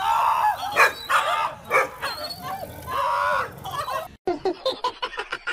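Excited dogs whining and yipping in wavering high-pitched calls, with a few short barks. A quick run of sharp clicks follows near the end.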